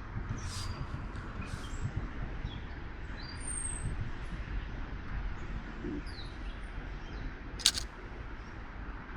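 Small birds chirping now and then in woodland over a steady low rumble of wind on the microphone, with one sharp click about three-quarters of the way through.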